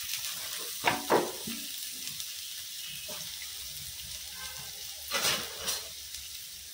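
Chopped onion, green chilli and curry leaves sizzling in hot coconut oil in a kadai, a steady hiss. A couple of brief knocks sound about a second in and again near the end.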